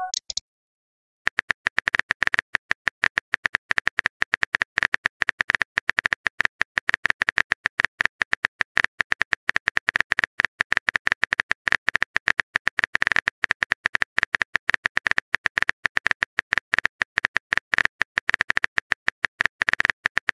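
Simulated phone-keyboard typing sound effect: a long run of quick, irregular clicks, many per second, starting about a second in, as a text message is typed out.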